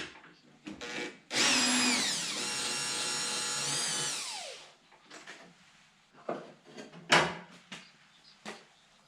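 A cordless power drill runs for about three seconds, dipping in pitch as it bites, holding steady, then winding down as the trigger is released. A few sharp knocks of parts being handled follow, the loudest about two and a half seconds after the drill stops.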